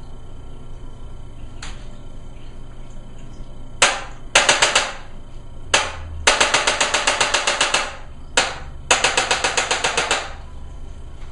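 Handheld chiropractic adjusting instrument clicking, three times over. Each time a single sharp click is followed by a rapid, even train of clicks at about ten a second, lasting from half a second to about a second and a half.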